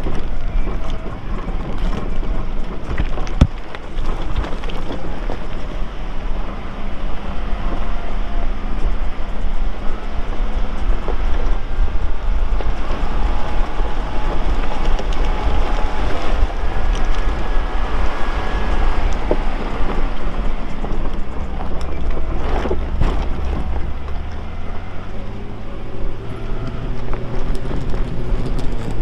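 Lifted Nissan R50 Pathfinder's engine running as it drives a rough, rocky trail, with scattered knocks and crunches from the tyres and running gear. The engine note steps up in revs about three quarters of the way through.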